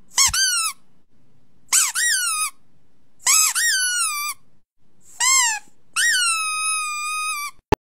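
Puppy giving five high-pitched whining howls, each rising quickly then sliding down and holding, the last one drawn out longest.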